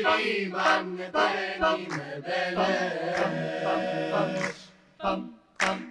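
Large mixed a cappella choir singing in harmony over a low held bass note, with short sharp percussive hits through it. About four and a half seconds in the singing thins out, leaving a few brief accents.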